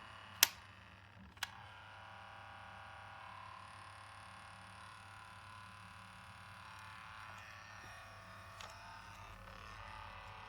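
Two sharp clicks from the Sony WM-FX43 Walkman's controls, then a faint steady whine of several tones from its running mechanism: the noise it makes when play is pressed, the fault that has it sold for parts.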